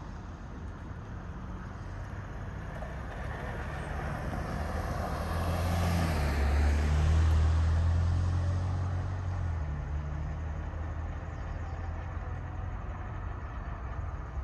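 A car drives over the railroad crossing and past. Its engine and tyre noise swell to a peak about six to eight seconds in, then fade away.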